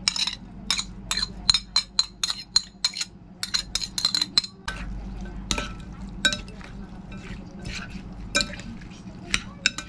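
Metal utensil clinking against a ceramic plate and a glass bowl as chopped chilies are scraped off into the bowl: a quick run of sharp clinks, each ringing briefly, for the first four seconds or so. Then sparser clinks as a fork stirs the raw fish mixture against the glass.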